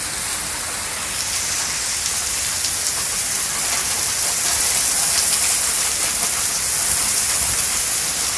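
Heavy wind-driven rain pouring down in a severe thunderstorm, a steady dense hiss that grows a little louder about a second in.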